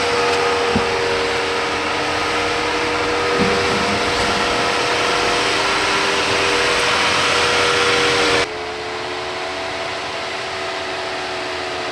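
Jeep JL Wrangler Rubicon running steadily as it crawls over a rock obstacle, a constant engine and drivetrain drone under a hiss, with a couple of light knocks. About eight and a half seconds in the sound drops suddenly to a lower, steadier level.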